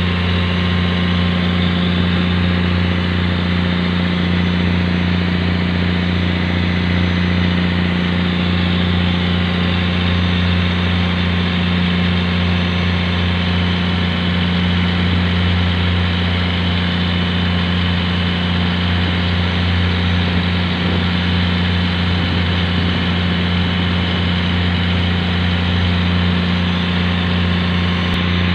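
Steady low drone of a fishing boat's engine running, heard on board, with an even hiss above it.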